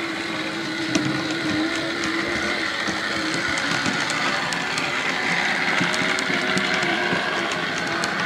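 OO gauge model train running past: the locomotive's electric motor whining steadily, with the wheels clicking over the rail joints, the clicks coming more often in the second half. A sharper click about a second in.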